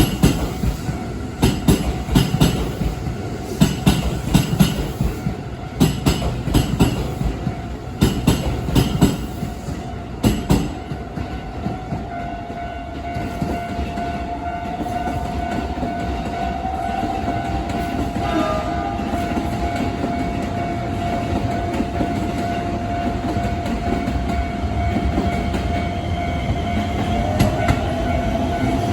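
Keisei electric train passing over the rail joints with rapid wheel clicks for the first ten seconds or so, then a steadier running rumble. Under it a level-crossing warning bell rings steadily throughout.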